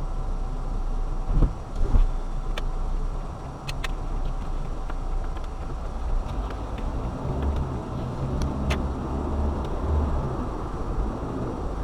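A car driving on a road: a steady low rumble of engine and tyres, with two thumps about a second and a half and two seconds in, and scattered light clicks.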